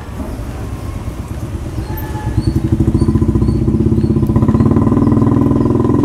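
An engine running with a fast, even pulse, growing louder about halfway through.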